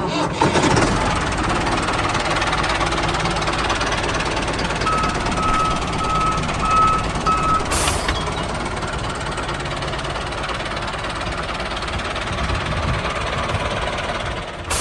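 Heavy vehicle engine running steadily with a rough, noisy sound. About five seconds in, a beeper sounds four evenly spaced beeps, then a short click follows.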